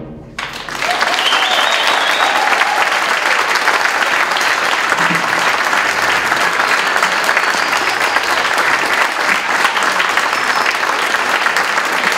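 Audience applause, breaking out about half a second in as the concert band's final chord dies away, then holding steady.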